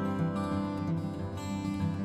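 Background music with an acoustic guitar strumming.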